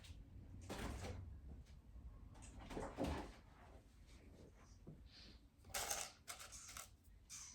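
Plastic Lego pieces being handled and fitted together: a few short, quiet rustles and clicks, the sharpest a little before the end.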